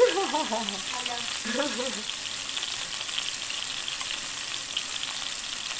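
Fish steaks frying in hot oil in a pan: a steady sizzle with fine crackling. A voice is heard briefly in the first two seconds.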